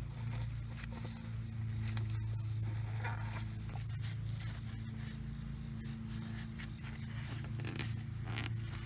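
Paper towel rubbing and rustling as it wipes oil out of a PCV valve and its port, in scattered scrapes over a steady low hum.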